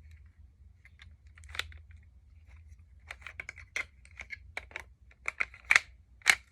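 Hard plastic Lego parts of a brick-built pistol model clicking and clattering as they are handled, in a run of irregular clicks with the two loudest near the end.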